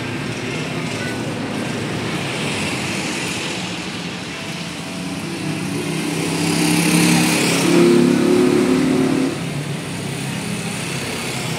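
A motor vehicle's engine running close by, growing louder toward the middle and dropping away suddenly about three-quarters of the way through, as if passing.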